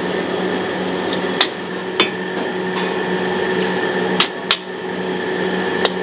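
Metal wok spatula clanking sharply against a steel wok about five times as noodles are stir-fried, over a steady frying hiss and a low hum.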